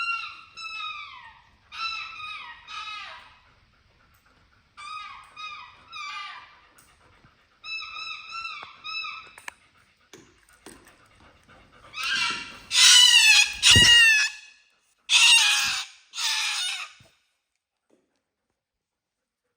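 A pet giving high, whining calls in short groups, each call sliding down in pitch; about twelve seconds in the calls become much louder and harsher, with a thump among them.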